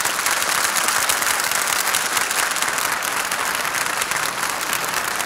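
Studio audience applauding: a steady, sustained round of clapping, as heard on a 1950 radio transcription disc recording.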